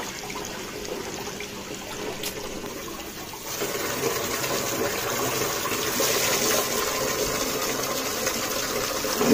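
Tap water running and splashing as it is poured through a diesel car's intercooler to rinse it out, growing louder about three and a half seconds in.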